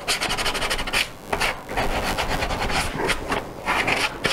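A hand tool rubbing and scraping over the freshly machined edge of a pocket in myrtle wood in quick repeated strokes, taking off the burr left by the router cut.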